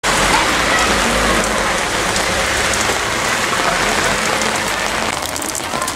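Sudden heavy downpour falling steadily on pavement and umbrellas: a dense, even hiss.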